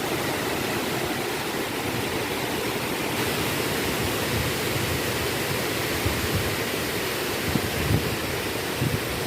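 Water rushing steadily over a small waterfall in a stream. A few brief low bumps come near the end.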